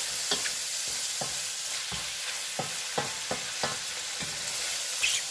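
Sliced sausage and mushrooms frying in a stainless steel pot with a steady sizzle, stirred with a wooden spoon that knocks against the pot every half second or so.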